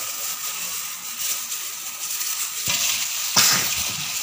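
Raw chicken liver being mixed with egg, corn flour and spice powders in a stainless steel bowl: wet squishing and stirring noise. There is a sharper knock or scrape against the bowl about three and a half seconds in.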